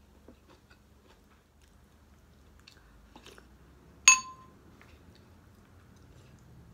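Quiet chewing and small handling sounds, then about four seconds in a single sharp clink of a metal spoon against a ceramic bowl, ringing briefly.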